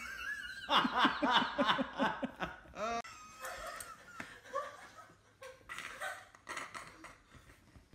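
A person laughing hard in quick, repeated bursts, beginning about a second in and lasting about two seconds, followed by quieter, scattered laughter.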